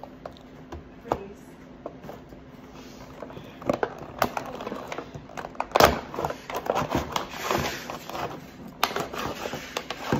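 Clear plastic action-figure packaging being cut and pried open, a run of irregular crackles, clicks and snaps of hard plastic, the loudest crack about six seconds in.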